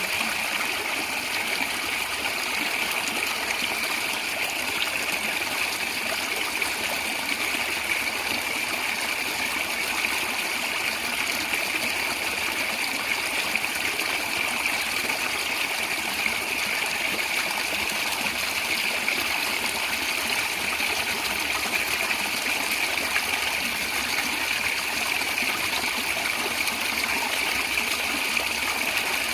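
A small stream running and gurgling steadily over stones, with a bright, even rush of water.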